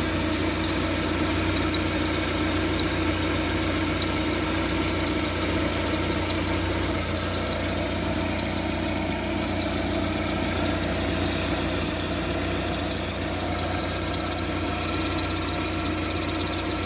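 VAZ 2112 1.6 16-valve engine idling while its alternator drive belt gives a chirping squeal, which grows louder in the second half. The squeal comes from the belt itself, not from the alternator or roller bearings, all of which have been replaced.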